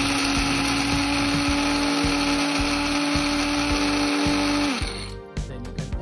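Electric blade coffee grinder running steadily, its spinning blade grinding coffee beans to a fine grind. Near the end it switches off, its hum dropping briefly in pitch as the motor spins down.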